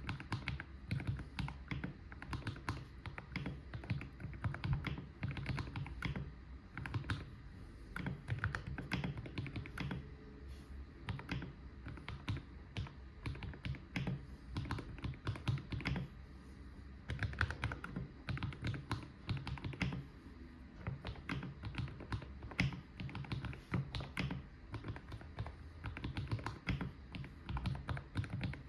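Typing on a GMMK Pro mechanical keyboard fitted with Akko V3 Cream Yellow linear switches. The keystrokes come in quick, irregular runs with short pauses between them.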